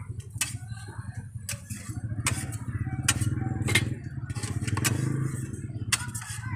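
A small engine runs with a steady, fluttering low rumble, typical of an idling motorcycle. Over it come sharp clicks and scrapes of a metal spatula against a steel crepe hotplate as a crepe is folded.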